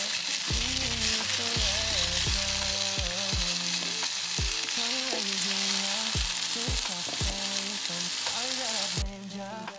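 Zucchini pieces sizzling in hot oil in a nonstick frying pan, a steady hiss that drops sharply near the end.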